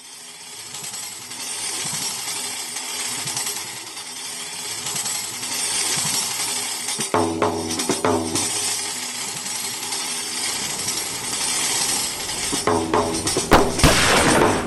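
Film soundtrack music with a dense, high shaking percussion pattern. Held low notes come in about seven seconds in and again near the end, along with a few sharp strikes.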